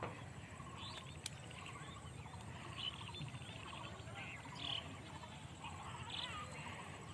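Outdoor wildlife ambience: many short chirping calls overlapping at irregular intervals over a low, steady rumble.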